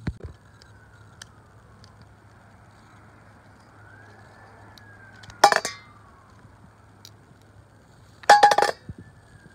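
Metal clinking against a stainless steel bowl as grease-packed differential parts are picked apart over it. It comes in two short bursts about three seconds apart, the second a quick run of several clinks.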